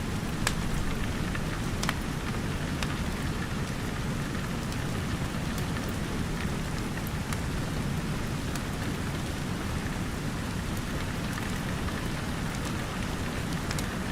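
Steady heavy rain falling, a dense patter with a low rumble underneath and a few sharp ticks now and then.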